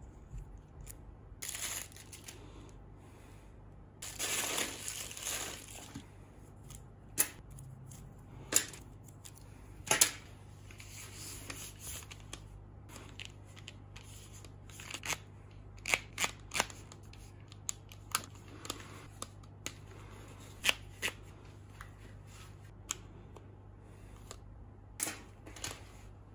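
Audio-Technica ATH-M50x headphones and their cables being handled on a table: rustling, with scattered sharp clicks and knocks of the plastic parts and plugs, over a faint low hum.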